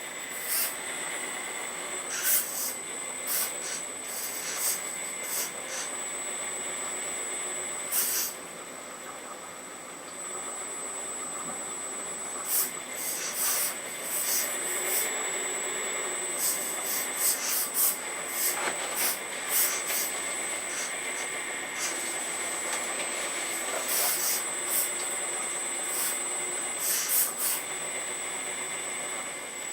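Radio-controlled Earth Digger 4200XL hydraulic excavator working: its hydraulic pump runs with a steady high whine and hiss, broken by many short rattling bursts. The whine drops out briefly about eight seconds in, then resumes.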